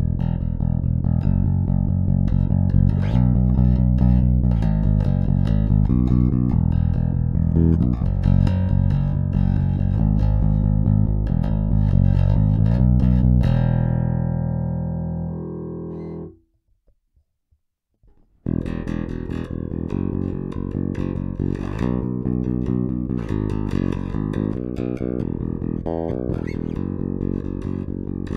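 Schecter Riot Session five-string electric bass played through active EMG pickups, a 40DC at the neck and a 40J at the bridge. A run of plucked notes ends in one held note that fades out a little past halfway, and after a brief silence the playing starts again.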